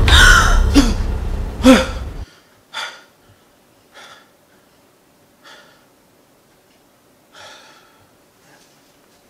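A loud, sudden horror scare sound with a deep boom and gasping cries, cutting off abruptly about two seconds in. It is followed by a man's heavy, uneven breaths, a second or more apart, as he wakes from a nightmare.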